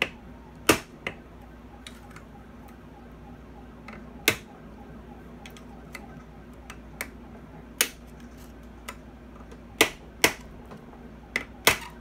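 About eight sharp taps and clicks at irregular intervals as hands and a small tool handle a bench grinder's metal motor housing, over a faint steady low hum.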